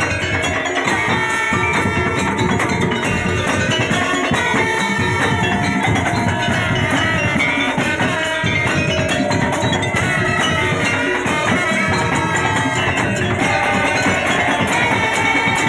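Music with a dense percussion part and melodic lines over it, continuous and loud.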